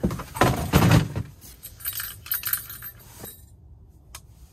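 Clatter and clinking as a clear plastic tub and an ice scoop are handled, loudest in the first second, then lighter knocks and clicks that thin out, with one sharp click near the end.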